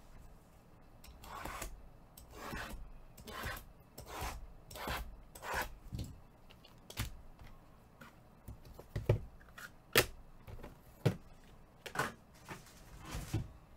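Cardboard trading-card boxes being slid and stacked by hand: short rubbing swishes about once a second, then several sharp knocks as boxes are set down.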